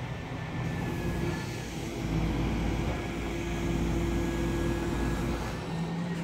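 Diesel engine and hydraulics of a Volvo EW205D material handler working as the boom and grapple swing, with a thin steady high whine over the engine note. The engine note grows heavier under load from about a second in and eases off near the end.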